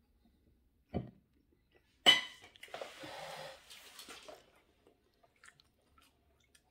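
A dull knock about a second in, then a sharp clink of a metal fork against a ceramic plate, the loudest sound, followed by about a second of rustling and a few light taps.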